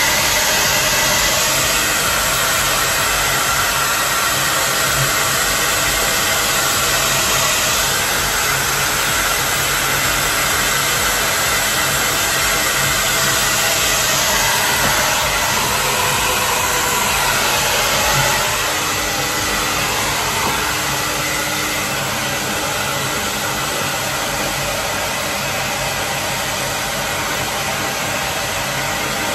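Hand-held hair dryer running steadily as it blows a small dog's wet coat dry after a bath. The sound drops slightly a little past halfway through.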